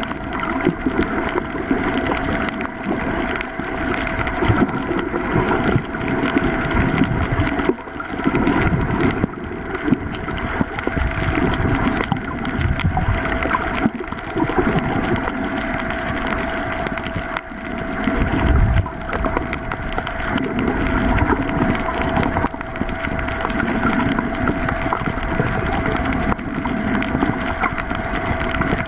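Muffled underwater sound picked up by a submerged camera: an uneven low rush of water with a steady high-pitched hum running through it.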